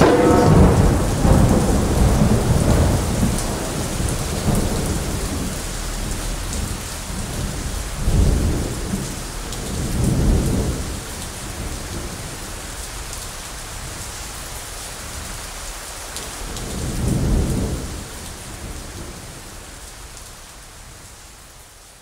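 Steady rain with three low rolls of thunder, about 8, 10 and 17 seconds in, the storm slowly fading out towards the end. Djembe drumming dies away in the first second.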